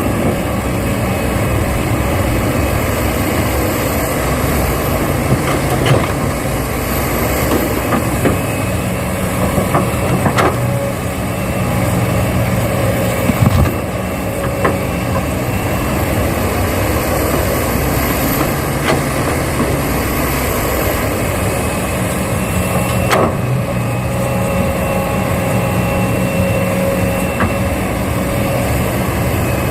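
Excavator running steadily while it works, with a faint high whine that rises and falls and a few sharp knocks scattered through.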